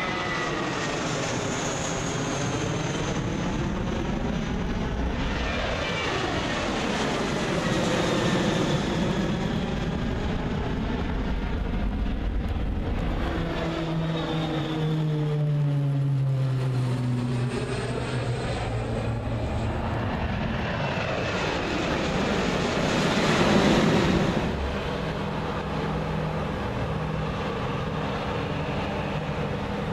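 Aircraft passing low one after another: a twin-jet airliner climbing out overhead, then a twin turboprop whose low propeller drone falls in pitch as it goes by, then a louder jet pass a little before the end. The engine noise swells and fades with each pass.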